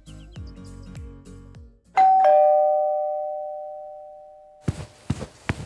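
Intro music ends, then a two-note ding-dong doorbell chime rings out and fades over about three seconds. Near the end comes a run of sharp thumps, about two a second.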